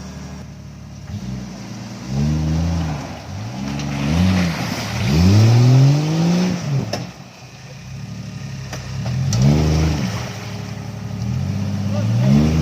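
Off-road vehicle engine revving in repeated bursts, the pitch rising and falling, with one longer climb about four to six seconds in.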